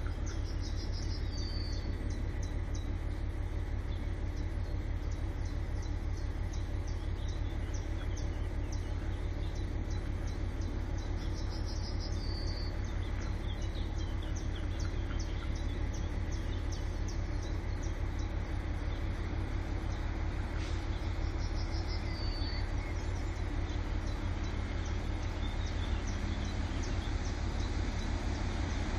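A songbird sings the same short trilling phrase three times, about ten seconds apart, over a steady low rumble and faint, even insect-like ticking. Near the end the diesel engine of an approaching railcar comes in faintly.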